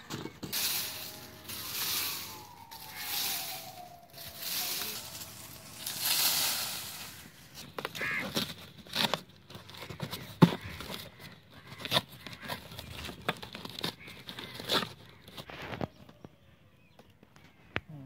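Footsteps crunching through dry fallen leaves, about one step a second, with a faint falling whistle-like tone behind them. From about eight seconds in, a cardboard carton is handled and folded: sharp creasing clicks, crackles and tearing sounds as its flaps are bent and pressed.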